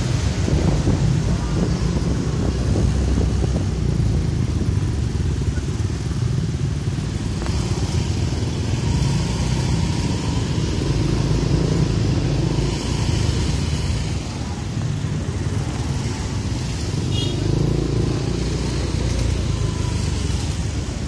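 Motor scooter riding at low speed in slow street traffic: its engine and those of the surrounding scooters and motorcycles make a steady low rumble.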